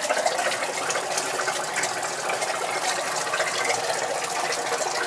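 Water rushing steadily as a water heater tank fills through newly plumbed lines, with a crackling, spitting edge from air being pushed out through a cracked-open tap.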